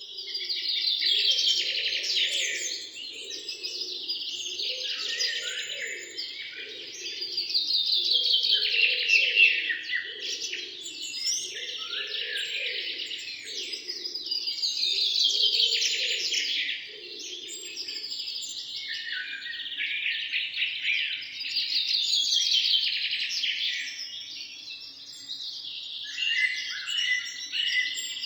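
Several birds singing and chirping together: a dense chorus of high twittering song that swells and eases about every seven seconds, with a lower call repeating about once a second through the first two-thirds.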